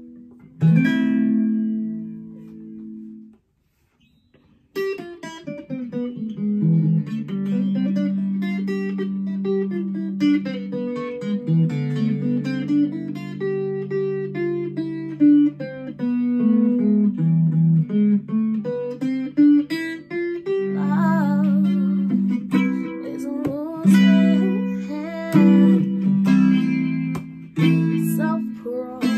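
Electric baritone ukulele played through a small practice amp: a strummed chord rings out and fades to a brief pause, then picked notes and chords run on steadily.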